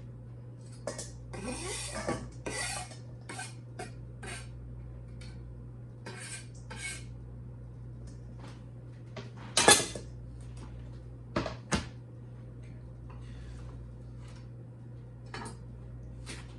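Scrapes and clinks of a knife and a metal bowl as minced garlic is scraped into the bowl: scattered scraping sounds, a sharp clink against the bowl about ten seconds in, and two more clinks a moment later.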